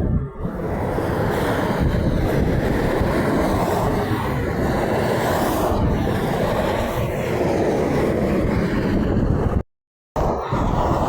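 Wind buffeting the microphone over the rush of passing highway traffic, with no horn sounding. The sound cuts out completely for about half a second near the end.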